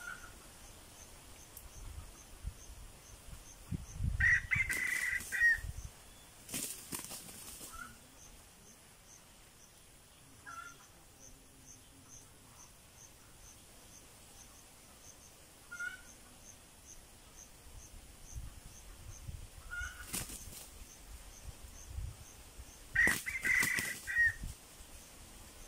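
Roosters (a decoy and a wild junglefowl) facing off. Short clucks come every few seconds, and twice, about four seconds in and again near the end, there is a burst of wing flapping with a loud call.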